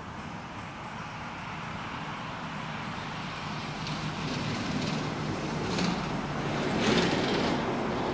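A motor vehicle running nearby, a steady engine and road noise with a low hum that grows louder, peaking about seven seconds in.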